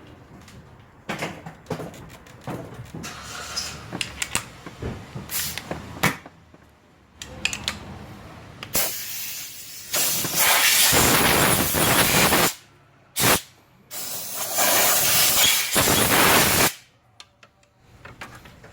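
Scattered clicks and clatter of handled parts, then loud hissing like a spray or jet of air, in three bursts: a long one, a short one, and another long one that cuts off sharply.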